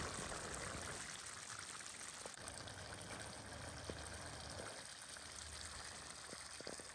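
Squirrel stew simmering in a frying pan on a portable gas stove: a steady, faint hiss, with a few light taps near the end.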